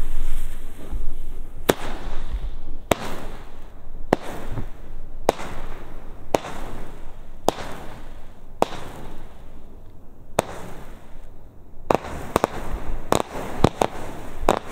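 Diamond 'Hot' consumer firework battery, a 48-shot gold comet cake, firing. Sharp launch bangs come about once a second, each followed by a fading hiss. Near the end the shots speed up into several in quick succession.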